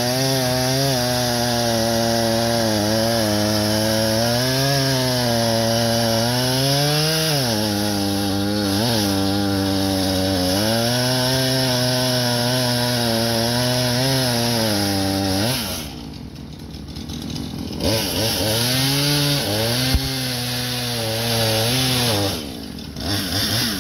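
Two-stroke gas chainsaw running at high throttle as it cuts through a log lying in the water, its engine note sagging and recovering as the chain bites. About 15 seconds in it drops back toward idle, then revs up again and eases off near the end.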